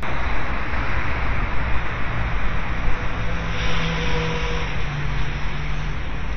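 Steady road and engine noise of a moving vehicle heard from inside, a low rumble under an even hiss, with a faint steady hum joining for a couple of seconds around the middle.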